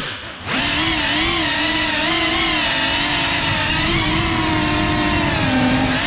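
GEPRC CineLog35 cinewhoop's brushless motors and ducted propellers whining. The sound drops away briefly near the start, then comes back and holds a fairly steady, slightly wavering pitch as the drone cruises, sagging a little near the end.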